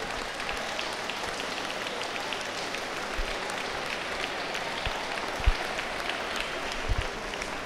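Audience at a dog show applauding steadily, a dense patter of many hands clapping. A few low thumps come through it, the sharpest about two-thirds of the way in.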